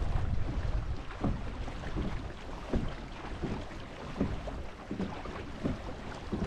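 Kayak under way: rhythmic water swishes from its strokes, about one every 0.7 seconds, over a low rumble of wind on the microphone.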